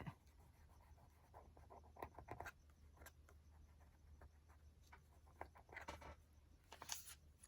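Near silence with faint, scattered rustles and scratches of paper being handled, as a glued journal page is pressed and smoothed down by hand.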